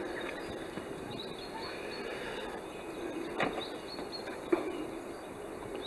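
Quiet outdoor background noise, with two light knocks about three and a half and four and a half seconds in from someone moving about in a small fibreglass yacht's cockpit.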